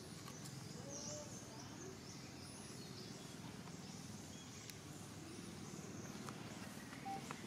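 Faint outdoor ambience: a steady low hum of background noise with a few short, thin, high chirps and squeaks and an occasional soft click.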